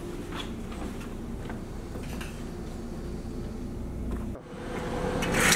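A steady low machine hum with light ticks, which breaks off abruptly about four seconds in; a louder rushing hiss then swells up and is at full strength by the end.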